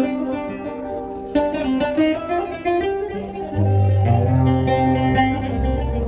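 Live Arabic ensemble music: a plucked string instrument picks out a melody, and a deep bass joins a little past halfway.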